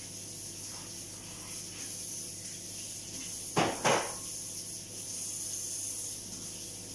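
Two short knocks about a third of a second apart, over a steady low hum and hiss.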